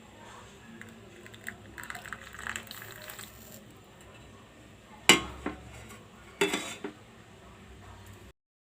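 Kitchen dishes and utensils being handled: light scrapes and clinks, then two sharp clanks about a second and a half apart, the first one louder.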